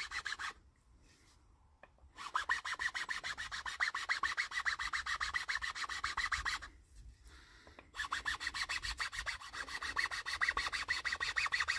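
Round chainsaw file rasping back and forth in a shallow saw-cut groove around a wooden hiking stick, in two runs of rapid, even strokes with a pause before each. The file is widening the saw cut into a trench for a carved hand-grip ring.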